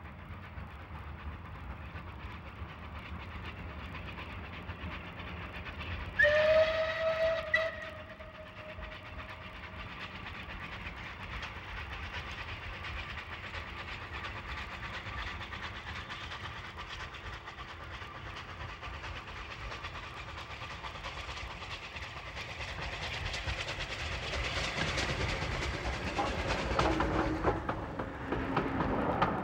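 Steam locomotive approaching under steam, sounding one whistle blast about six seconds in, a single note of about a second and a half that glides up briefly as it opens. Near the end the train draws close and grows louder, and the coaches pass with a rapid clickety-clack of wheels over rail joints.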